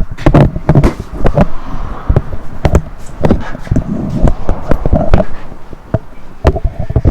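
Loud, irregular metal clanks and knocks in quick succession, with a short squeal near the end.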